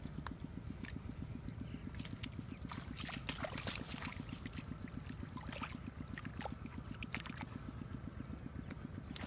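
A small engine running steadily with a fast, even low pulse, with scattered water splashes and drips on top.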